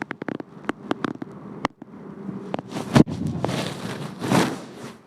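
Joints cracking during a chiropractic spinal adjustment: a quick run of sharp clicks and pops, then one loud crack about three seconds in. Breathy exhaling sounds follow the crack.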